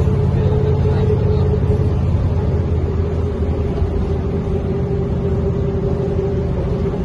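Mercedes-Benz O405N2 city bus on the move, heard from inside the passenger cabin: a steady engine rumble with a steady mid-pitched whine over it. The rumble eases a little after about three seconds.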